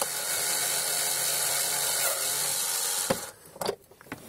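Cordless power screwdriver running steadily as it backs out a glove-box screw. The motor stops about three seconds in, followed by a few light clicks.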